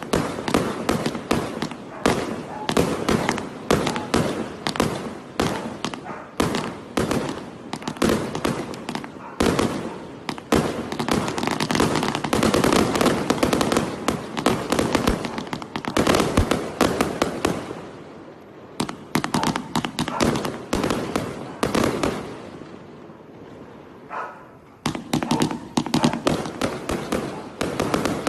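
Fan-shaped consumer fireworks cake with 0.8-, 1.2- and 1.5-inch tubes firing a rapid barrage of shots and bursts, densest in the middle. The shots thin out about 18 seconds in, ease to a quieter stretch, then return in a last quick run near the end.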